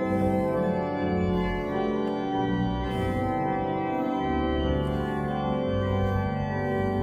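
Church organ playing slow sustained chords over a bass line, the harmony shifting every second or two.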